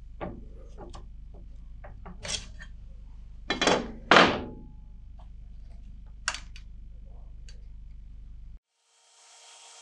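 Scattered clicks and knocks of tools handled against a bench vise that holds a glued stack of ebony and metal spacers, with two louder thunks about four seconds in. Near the end the sound cuts off and a faint steady hiss takes over.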